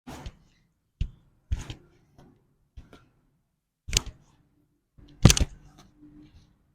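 A series of irregular thumps and knocks during a hands-on chiropractic adjustment on a treatment table, about seven hits in all, the loudest about five seconds in.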